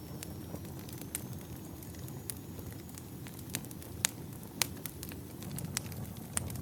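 Wood campfire burning: a steady low rumble of flames with sharp crackles and pops from the burning firewood at irregular intervals, two of them louder a little past the middle.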